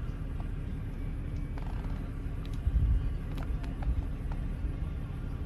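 Holden VY Commodore engine idling steadily, a low rumble, with a few faint clicks and a brief louder low thump about three seconds in.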